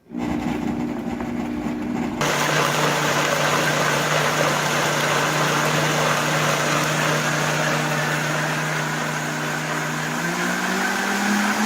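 Countertop blender motor running, pureeing tomatoes, serrano pepper and ginger. It starts abruptly and gets fuller a little over two seconds in, then runs steadily, its motor pitch rising near the end.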